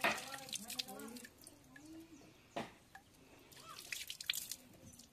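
Water splashing and dripping as a person bathes by hand, scooping water from a tub with a mug and splashing it onto the face, the runoff pattering onto wet ground. Several separate splashes, the loudest at the very start and a cluster near the end.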